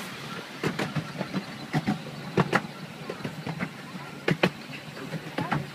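Open carriages of a miniature steam railway running along the track: a steady low rumble with irregular clicks and knocks as the wheels roll over the rails and the carriages rattle.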